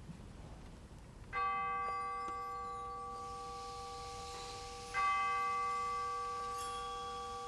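A bell-like percussion instrument in a wind ensemble struck twice, about three and a half seconds apart, each stroke ringing on and fading slowly, as the piece begins.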